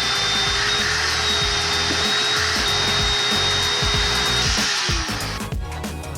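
A handheld power tool running at a steady high speed with a constant whine, cutting wood or staples, then spinning down just under five seconds in. Background music plays underneath.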